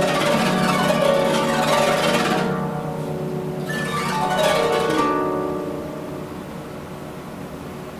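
Concert harp being played solo: dense plucked notes, then two quick sweeps across the strings about 2.5 and 4 seconds in, after which the strings ring on and fade away.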